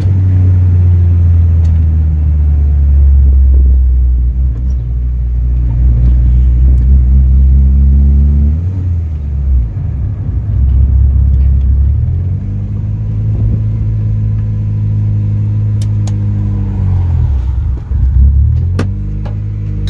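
Turbocharged Honda D16Z6 SOHC four-cylinder engine heard from inside the Civic's cabin on the move: a steady engine note that climbs and breaks off about eight seconds in, as with a gear change, then settles into a new steady note and falls away near the end.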